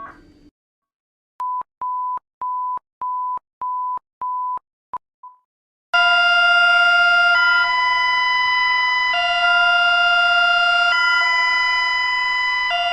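Electronic emergency alert tones: six short, even beeps at one pitch, a little under two a second. After a brief gap comes a loud, sustained multi-tone alarm that switches back and forth between two chords roughly every two seconds.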